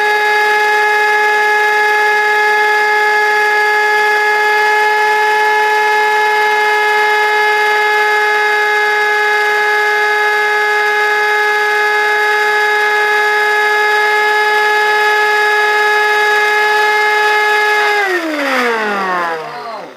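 Vacuum cleaner motor spinning a CD at high speed: a loud, steady high whine. About two seconds before the end it winds down, the pitch sliding quickly downward.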